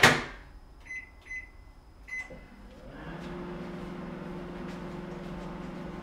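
Panasonic microwave oven door shut with a sharp bang, a few short keypad beeps, then the oven starting and running with a steady hum.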